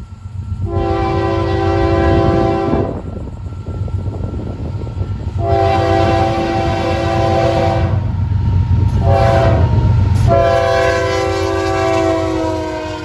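Florida East Coast Railway diesel freight locomotive's multi-chime air horn sounding the grade-crossing signal: long, long, short, long, with the last blast dropping slightly in pitch as the locomotive comes alongside. A steady low rumble of the engines and wheels runs underneath.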